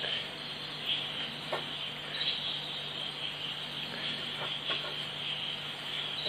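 Insects chirping in a steady, high-pitched trill, over a low steady hum, with a few faint light taps.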